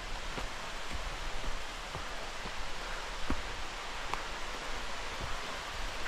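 Steady rush of a waterfall, with irregular footsteps on a dry, leaf-strewn dirt trail.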